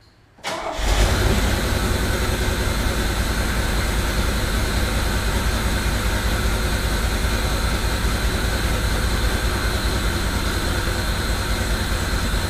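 Car engine idling steadily with an even, rapid low pulse, coming in abruptly about half a second in.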